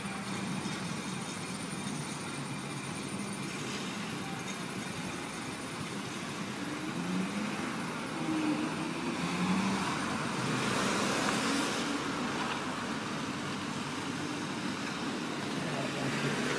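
Road traffic on a wet street: a truck's diesel engine running slowly as it manoeuvres, with cars passing and their tyres hissing on the wet road. A passing car's tyre hiss swells loudest about ten to twelve seconds in.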